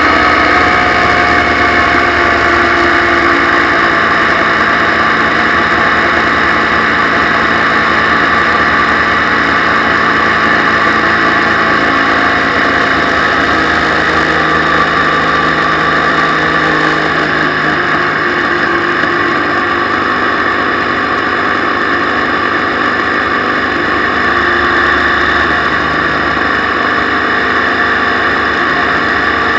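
Motorcycle engine running steadily while riding, mixed with wind and tyre noise on a wet road.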